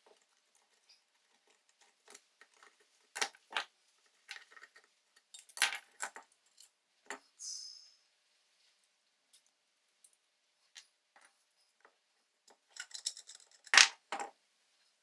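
Small metal parts being handled on a workbench: scattered clinks and clicks, with a cluster of them and one loud metallic clink near the end.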